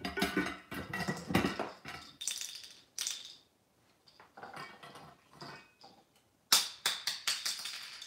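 Wooden spoon stirring chewed toys around a stainless steel bowl, a rattling, clinking clatter, which eases off to lighter clicks in the middle. About six and a half seconds in comes a quick run of sharper knocks and clinks on the bowl.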